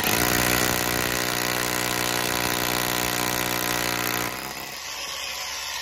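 Milwaukee M18 cordless rotary hammer drilling into brick with a masonry bit, a steady hammering buzz. About four seconds in the hammering drops away and the drill runs on more quietly.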